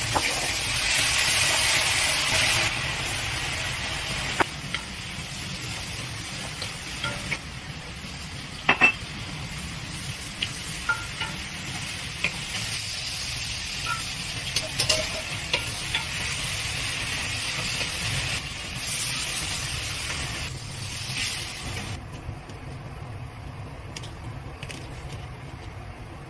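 Pork, garlic and chili, later with potatoes, frying and sizzling in a cast-iron wok, loudest in the first couple of seconds, while a wooden spatula stirs and now and then knocks against the pan with sharp clicks. The sizzle drops away about 22 seconds in.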